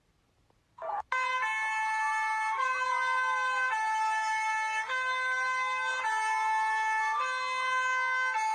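Electronic emergency warning siren sounding an alert, starting about a second in after a moment of silence. A two-tone hi-lo alternation switches pitch roughly every second, layered with a slower wailing tone that glides up and down.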